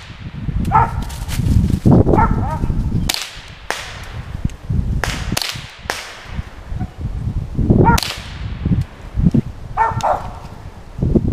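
Several sharp gunshots fired up into the trees at a treed squirrel, a few seconds apart. Between them a Mountain Cur treeing dog gives short barks, over the low rumble of wind on the microphone.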